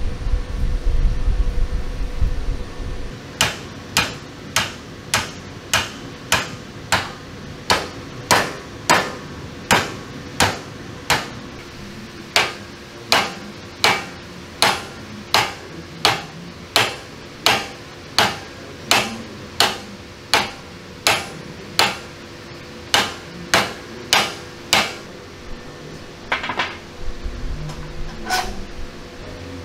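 A hand hammer striking the rust-seized steel linkage of a tank's driver's vision block, sharp metallic blows at a steady pace of about two a second, with a short break partway through and a few slower strikes near the end. The blows are driving the fused parts to free them. A low rumble comes first, for about three seconds.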